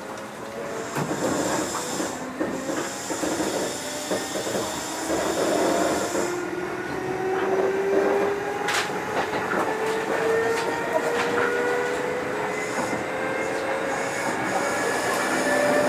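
Kintetsu 2430 series electric train heard from on board. Its motors and gears whine in several tones that rise steadily in pitch as the train gathers speed, over running noise with a few sharp clicks from the wheels and rails.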